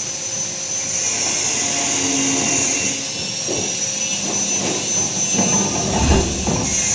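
A motor-driven taro processing machine running with a steady high whine. Irregular knocking and rattling comes in about halfway through and peaks near the end, as if pieces are tumbling inside it.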